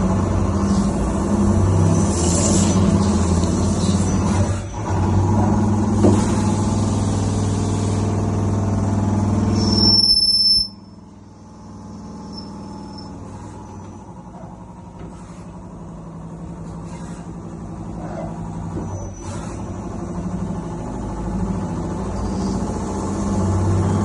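CNC lathe running and cutting, a steady machine hum. About ten seconds in there is a brief high squeal, then the sound drops off suddenly to a quieter whir with a few clicks, and it gradually builds back up toward the end.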